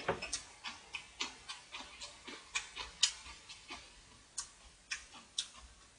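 Close-up wet chewing and mouth clicks of a person eating, about two to three smacks a second, thinning out near the end.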